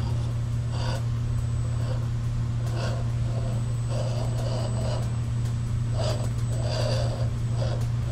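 Electric RC rock crawler with a Crawlmaster 550 12T brushed motor climbing over rocks at crawling speed: a steady low motor hum, with irregular short scrapes and whirs from the tires and drivetrain working against the rock.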